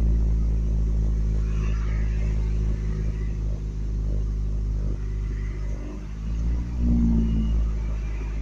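Truck engine running with a low rumble, swelling briefly about seven seconds in. This is a truck that dies whenever it is taken out of park and put into gear.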